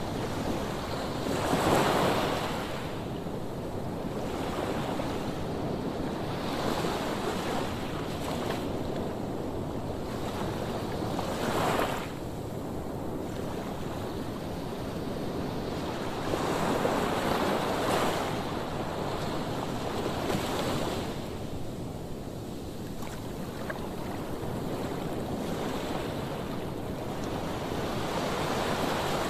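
Sea waves washing onto the shore, the noise swelling and falling with each wave, loudest about two seconds in, near twelve seconds and around seventeen to eighteen seconds, with wind buffeting the microphone.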